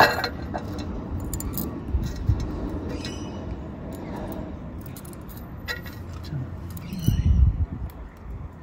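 Light metallic clinks and clicks as a slotted steel tile-roof mounting bracket is handled and its sliding parts adjusted, with a sharp clack right at the start. A low background rumble runs underneath, with a louder low thump about seven seconds in.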